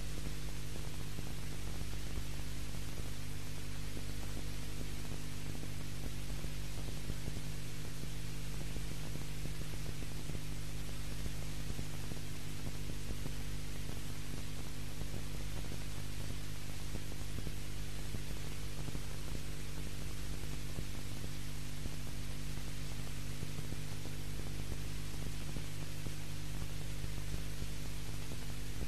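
Steady electrical hum with even hiss over it and nothing else: the background noise of an old video copy with no sound of its own in this stretch.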